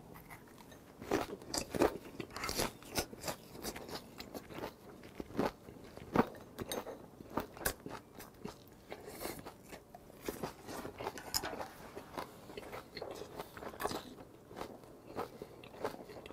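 Close-up chewing and crunching of a big mouthful of ssam: grilled pork belly, pen shell adductor and aged kimchi wrapped in a leaf. Wet crunches and mouth clicks come at irregular intervals, the loudest about 2 and 6 seconds in.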